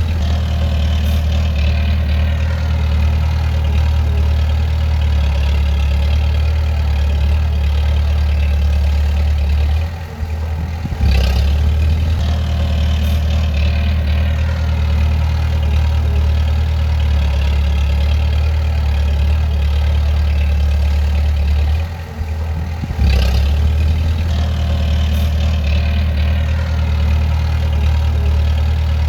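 Bulldozer's diesel engine running steadily with a deep, heavy hum. The sound dips briefly about ten seconds in and again about twenty-two seconds in, then picks up sharply.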